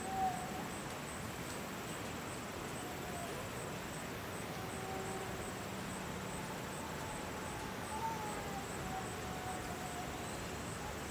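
Outdoor ambience: a steady hiss with faint, wavering drawn-out tones now and then, and a brief louder sound just after the start and again about eight seconds in.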